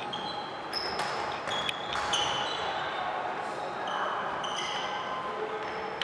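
Indoor court game play: many short, high squeaks of players' shoes on the sports-hall floor, with a few sharp thuds of the ball.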